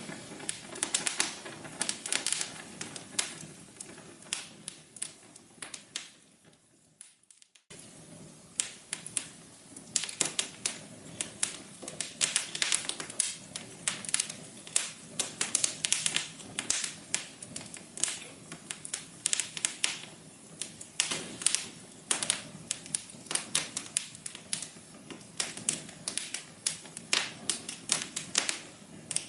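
Wood fire in a fireplace crackling, with dense, irregular snaps and pops over a soft hiss. About six seconds in it dies away almost to nothing, then starts again abruptly a second and a half later.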